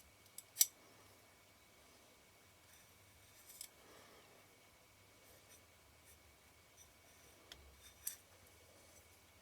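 A few light, sharp clicks and ticks from small metal lens parts and tools being handled while the focus helicoid is greased, over quiet room tone.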